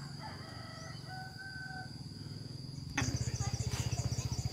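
A rooster crowing, a few held notes over a low steady hum. About three seconds in this gives way to a louder small engine running with a fast, even pulse, with high repeated chirps over it.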